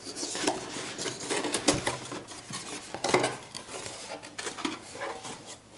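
Handling noise from unpacking a racing-drone kit: scattered light clicks and clatter of hard plastic parts and packaging, with some rustling.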